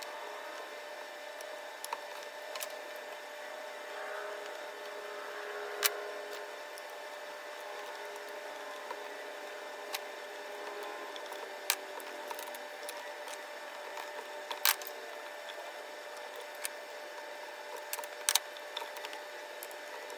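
Scattered sharp clicks and taps of small chainsaw parts and hand tools being handled, a few seconds apart, over a steady background hum.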